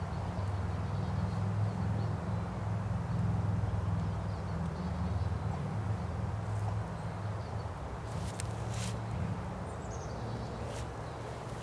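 Low, fluctuating rumble of wind buffeting the microphone, with a few faint sharp clicks and a short falling bird chirp near the end.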